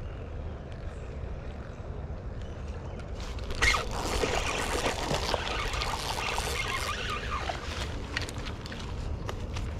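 Wind rumbling on the microphone, then from about three and a half seconds in a small hooked fish splashing and thrashing at the water's surface for about four seconds.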